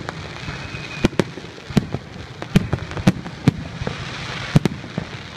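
Fireworks display: aerial shells bursting overhead, about eight sharp bangs at irregular intervals over a continuous rumble and crackle of the show.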